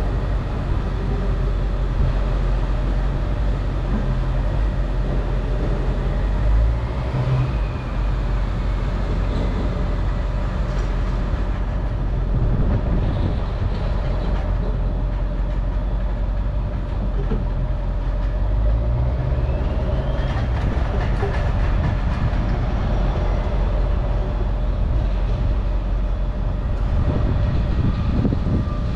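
Steady, loud, low mechanical rumble of a running vehicle or machine, with a faint whine that rises and falls twice.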